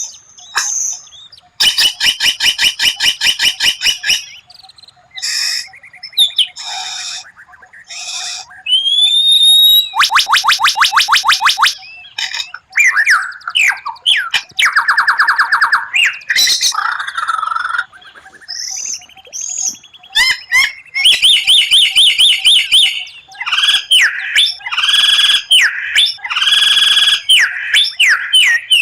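White-rumped shama (murai batu) singing a long, varied song. Its phrases alternate between fast rattling trills of rapidly repeated notes and clear whistles with rising and falling glides, with brief pauses between phrases.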